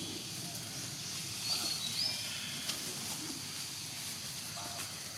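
Two short high-pitched animal chirps, the second rising in pitch, over a steady outdoor hiss.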